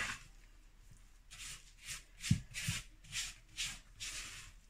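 Wooden spoon stirring a crumbly flour, butter and milk dough in a plastic mixing bowl: a run of scraping strokes, about two to three a second, with a dull knock of the spoon against the bowl about two seconds in.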